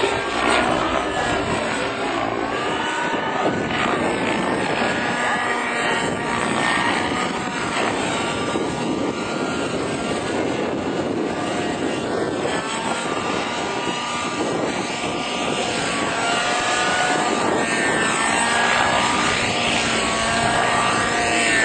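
Thunder Tiger Raptor 90 radio-controlled helicopter in flight, its glow-fuel (nitro) engine and rotor whining without a break, the pitch sliding up and down again and again as it manoeuvres and passes by.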